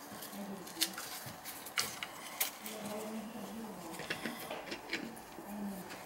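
Metal shower valve trim parts clicking and clinking as they are handled and fitted at the wall, about five sharp clicks spread over a few seconds.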